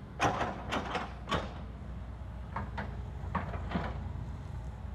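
Hitachi excavator's diesel engine running with a steady low hum, overlaid by clanks and scrapes from the bucket working rocky dirt: three loud ones in the first second and a half, then several softer ones.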